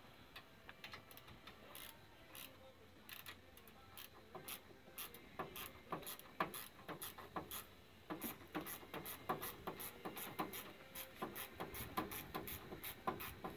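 Ratchet wrench clicking in quick short runs on the RZR's suspension bolts, faint at first and busier and louder from about halfway through.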